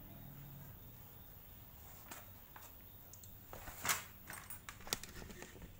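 A few light knocks and scrapes as a tubeless scooter tyre, off its rim, is picked up and turned over by hand; the loudest is a short scrape about four seconds in.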